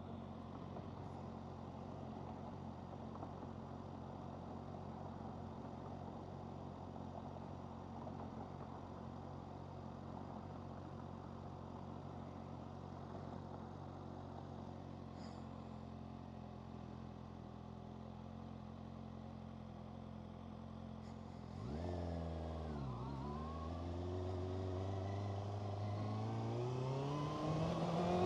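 Kawasaki Ninja ZX-6R 636 inline-four engine running steadily at low revs, then about three-quarters of the way through it picks up suddenly, dips and climbs steadily in pitch as the bike accelerates away, growing louder.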